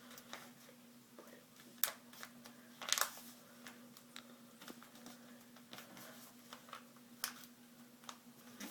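White paper being folded and creased by hand: a few sharp paper crackles and taps, the loudest about two and three seconds in and again near the end, over a faint steady hum.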